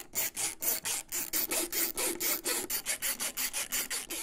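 A hand screwdriver driving in the screws that mount a 3D printer's logic board. It makes a rapid, even rasping clicking, about six or seven strokes a second.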